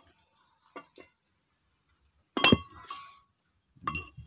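Two sharp metallic clinks about a second and a half apart, each ringing briefly: loose steel parts knocked together or set down while a removed flywheel is handled.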